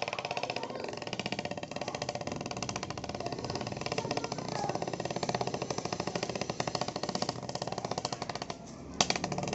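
A stick held against something turning clicks very rapidly, making a continuous clattering buzz that imitates a motorbike engine. It dies away briefly near the end, then a single sharp click comes before it starts up again.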